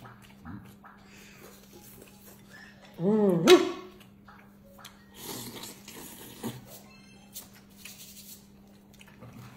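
Table eating sounds: a short voiced exclamation about three seconds in, the loudest sound, then noodles being slurped and chewed, with small clicks of chopsticks and bowls over a steady low hum.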